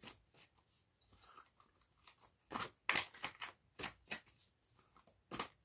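A deck of tarot cards being shuffled by hand: irregular flicks and slaps of the cards, sparse at first and coming closer together from about halfway through.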